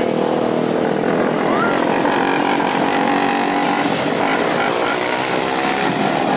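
Several 250cc micro sprint car engines running together as the pack laps a dirt oval, a loud, steady, layered engine drone with pitches that rise and fall slightly as the cars pass.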